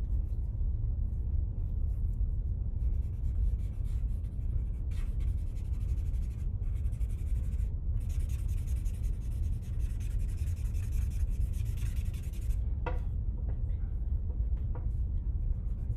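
Charcoal scratching and rubbing on drawing paper in many quick strokes, strongest from about three to twelve seconds in, over a steady low hum.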